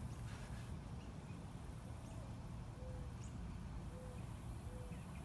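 Quiet outdoor background: a low steady rumble, with four faint short hooting notes from about two seconds in.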